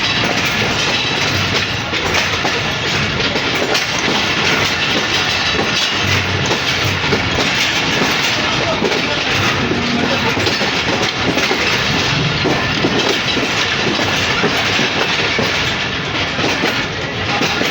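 Allama Iqbal Express passenger train under way: steady rumble and clickety-clack of the carriages running on the rails.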